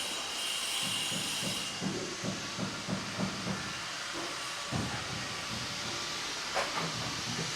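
Steady hissing noise, with faint low knocks in the middle and a single thump about five seconds in.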